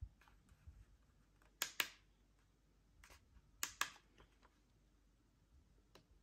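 Keypad buttons of a K&F trail camera clicking under a thumb as the settings menu is scrolled. Two sharper double clicks come about two seconds apart, with fainter ticks between.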